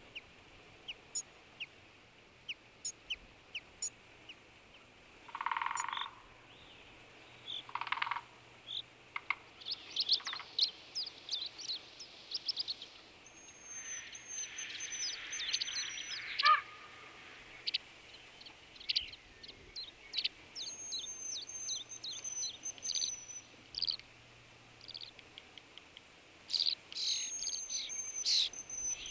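Wild birds singing: a chorus of short high chirps with repeated high trills.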